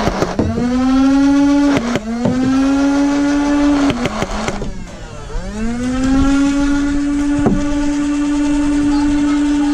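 Nerf Rival Nemesis blaster's motorized flywheels whining as they spin up and hold speed. The whine drops briefly near the two-second mark, sinks away around four seconds, then spins back up and holds, with a few sharp clacks of balls being fired.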